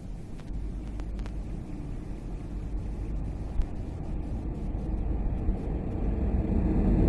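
Approaching freight train hauling container wagons: a low rumble that grows steadily louder as it nears.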